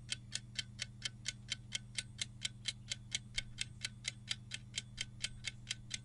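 Countdown-timer ticking sound effect, a clock-like tick about four times a second, over a faint steady low hum.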